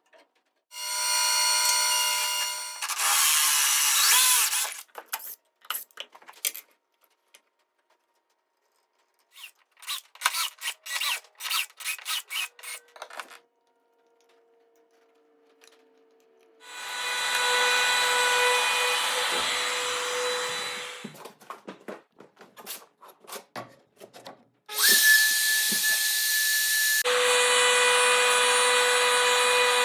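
Electric power tool, drill-like, working wood in several runs of a few seconds each with a steady motor whine. In between come pauses and a quick string of short bursts, like rapid trigger blips or short cuts.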